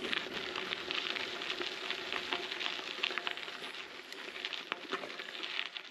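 Bicycle tyres rolling over a gravel trail, a steady fine crackle of crunching stones that eases off a little near the end.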